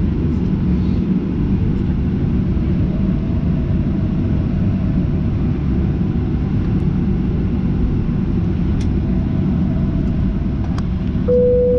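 Steady low rumble of a Boeing 737-800 heard from inside the passenger cabin while the aircraft is moving, engine and airflow noise blended together. A brief single steady tone sounds near the end.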